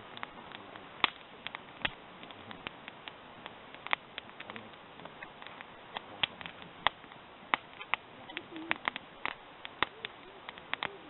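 Wood campfire crackling, with sharp irregular pops and snaps several times a second over a faint hiss.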